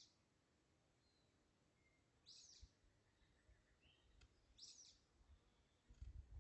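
Near silence outdoors, with a bird chirping faintly twice. A low rumble comes in near the end.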